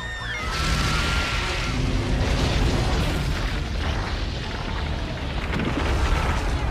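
Movie sound effects of the giant monster's destruction in Godzilla (1998): a deep, heavy rumble with booms and crashing debris that swells up about half a second in and stays loud.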